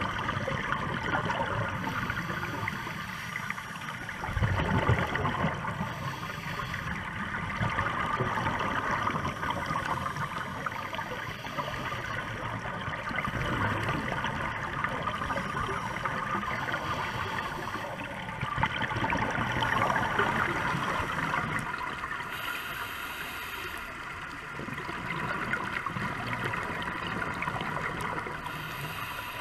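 Underwater sound heard through a diving camera: uneven gurgling and rushing of water and bubbles, with a louder surge about four seconds in and a faint steady high tone underneath.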